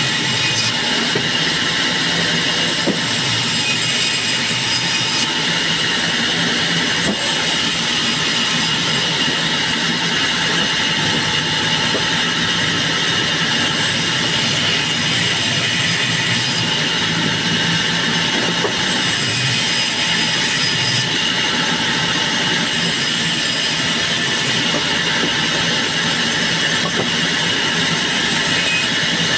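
Large band saw cutting lengthwise through a small round log as it is pushed by hand along the fence; a steady, unbroken sawing noise throughout.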